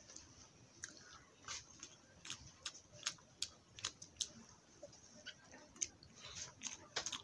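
A person eating rice and potato curry by hand: faint, irregular short wet chewing and lip-smacking clicks.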